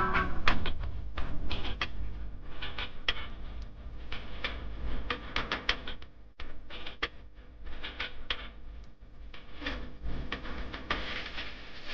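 Rapid, irregular clicking over a low steady rumble.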